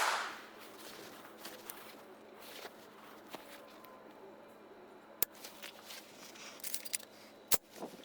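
A single loud rifle shot right at the start, its echo fading over about a second, then quiet outdoor background with faint ticks and two sharp cracks about five and seven and a half seconds in.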